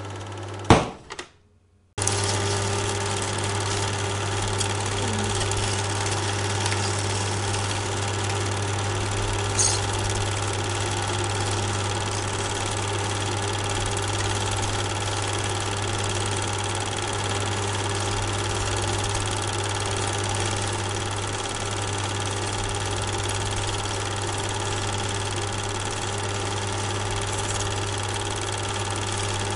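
Steady mechanical running hum with a constant low drone and several fixed tones above it. Near the start it breaks off with a sharp click and about a second of silence, then starts again abruptly.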